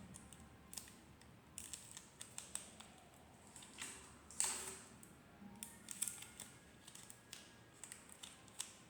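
Sticky tape and a paper sticker being handled and taped: faint scattered crinkles and clicks, with one longer rasp about four and a half seconds in.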